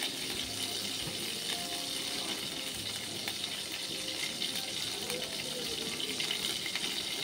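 Butter sizzling as it melts in a hot nonstick frying pan on a gas burner, a steady hiss.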